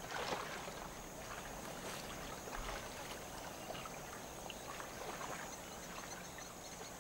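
African elephants splashing and wading in a shallow waterhole, heard at a distance as faint, irregular water sounds, with a thin steady high tone behind.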